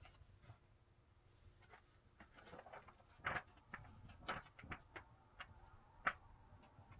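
Pages of a thick hardbound book being handled and leafed through: a run of soft paper rustles and light taps, the sharpest about three seconds in and again near the end.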